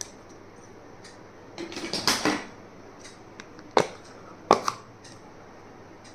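Small stationery items being handled on a tabletop: a brief crinkling rustle of packaging, then three sharp clicks of hard plastic pieces being set down or snapped.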